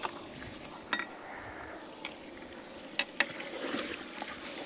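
Lamb pieces sizzling in a large metal pot as they are stirred with a wooden spoon, with a few sharp clicks of the spoon knocking against the pot.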